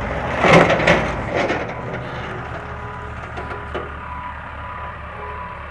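Dead tree crashing down: a burst of cracking and splintering wood about half a second in, then a few smaller snaps. Underneath, a backhoe engine runs and its reversing alarm beeps.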